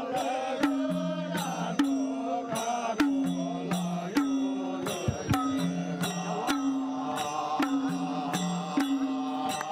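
A group of men singing a Gurung folk song together over madal hand drums, which keep a steady repeating beat that alternates between two drum pitches.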